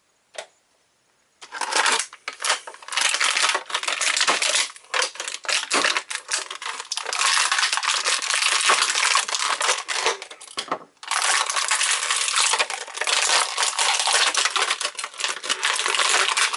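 Clear plastic toy packaging crinkling and crackling as it is handled and pulled open, starting about a second and a half in and going on almost without a break, with a short pause near the end.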